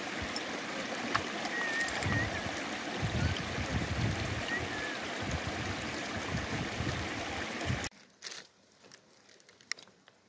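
Running water rushing steadily, with a few faint short chirps over it. About eight seconds in it cuts off suddenly, leaving a much quieter background with a few light clicks.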